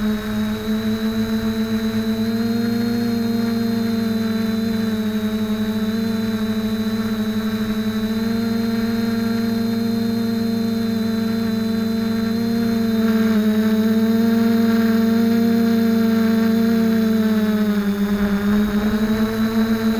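Quadcopter's electric motors and propellers buzzing steadily, close up from the camera mounted on the drone itself. The pitch wavers with the throttle and dips briefly near the end before rising again.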